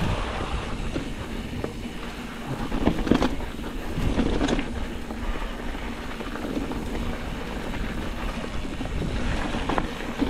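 Mountain bike clattering and rattling down a rough trail at speed, with wind buffeting the microphone. There are louder knocks about three and four and a half seconds in.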